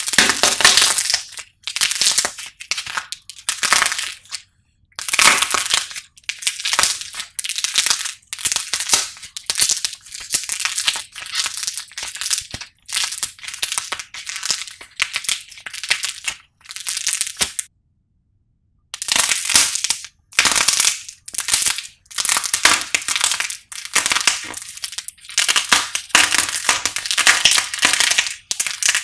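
Crisp crackling and crunching of a hardened, painted clay figure being squeezed and pulled apart by hand, its brittle coating breaking over soft clay, in repeated bursts with short pauses. A brief full silence falls a little past halfway.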